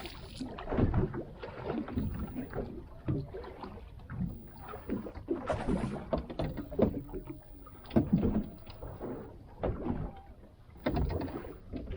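Irregular knocks, bumps and rustles on a small fishing boat as a fish is brought aboard and handled.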